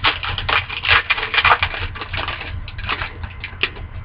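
Foil wrapper of an Upper Deck hockey card pack crinkling and tearing as it is opened, a dense run of quick crackles that thins out after about two and a half seconds.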